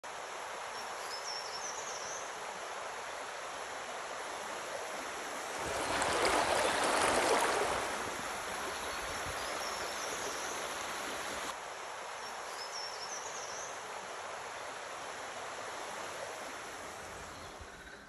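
Flowing river water, a steady rush that swells louder for a couple of seconds about six seconds in, with a few faint bird chirps.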